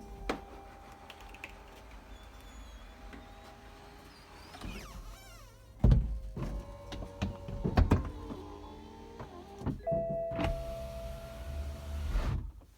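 BMW 4 Series (F33) convertible's folding hard top moving under power, its drive running steadily, with squeaks from the roof mechanism partway through and four heavy thuds as the panels move and lock. The squeaking is the fault the owner is showing.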